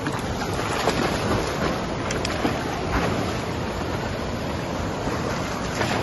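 Steady rush of waterfall and stream water, with a few brief splashes from dogs wading in the shallows.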